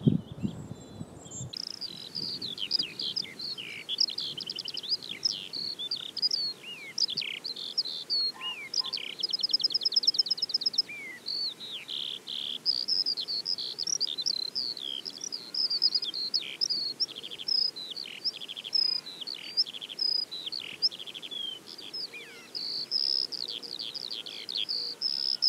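Eurasian skylark singing its long, unbroken warbling song of quick high notes and trills, with a loud rapid buzzy trill about ten seconds in, recorded on a phone through a homemade plant-pot parabolic reflector. The first second and a half is the tail of a phone-only willow warbler recording, mostly low rumble with faint song.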